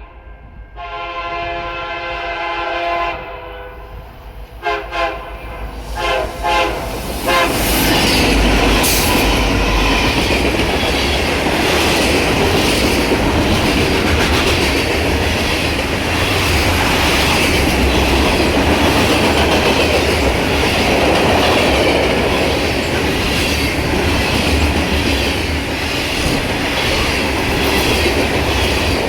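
Freight diesel locomotive air horn: one long blast, then a rapid string of short toots. About seven seconds in, the EMD SD75i and SD70M-2 locomotives and the grain train's freight cars pass close by with a loud, steady rumble and wheel clatter.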